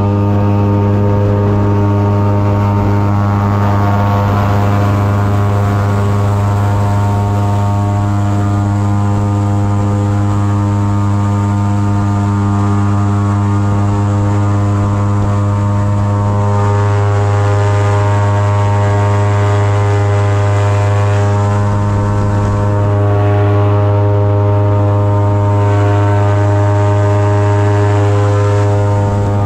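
Airboat's engine and large air propeller running at speed: a loud, steady drone with a strong low hum that holds its pitch throughout.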